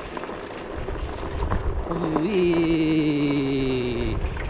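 A person's voice holding one long note for about two seconds, starting about two seconds in and sliding slowly lower, over a steady low rumble of wind and rolling.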